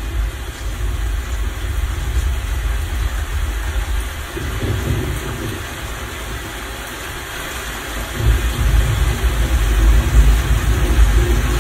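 Rainstorm sound effect with rumbling thunder played back through a Sony HT-S2000 Dolby Atmos soundbar and subwoofer: a steady rain hiss under deep rumbles that swell about four seconds in and grow louder again from about eight seconds on.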